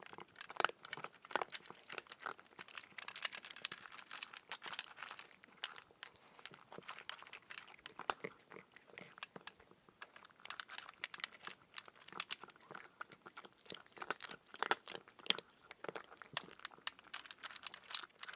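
Cat crunching dry kibble: quick, irregular bites and chews, with now and then the clink of pieces against the bowl.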